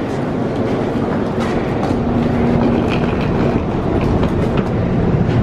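Electric commuter train standing at the platform with its doors open: a loud, steady rush and hum of its equipment, with a held tone about two seconds in that lasts a second and a half, and scattered clicks.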